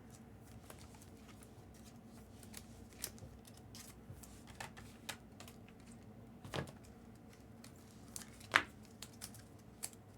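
Trading cards being handled: sparse, irregular light clicks and taps, the sharpest a little past eight seconds in.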